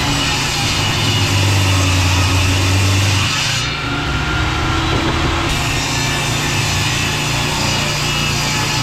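Table saw ripping 2x6 boards lengthwise into narrow strips, a steady loud sawing noise over the motor's hum that changes briefly about four seconds in.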